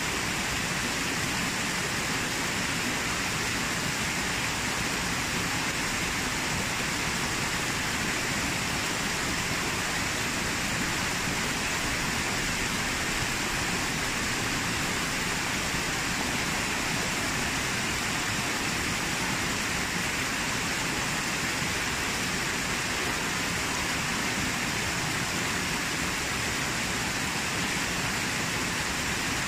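Steady rush of a small waterfall and stream cascading over rocks.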